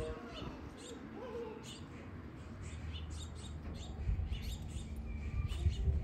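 Small backyard songbirds chirping: many short, high chirps scattered throughout, over a low rumble that grows louder in the second half.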